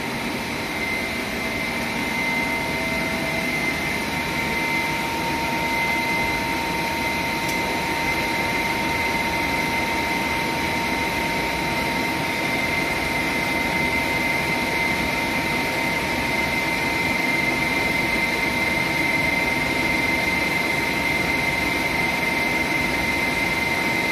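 Plastic-recycling extruder line with a self-cleaning screen changer running, a steady machine drone with a constant high-pitched whine.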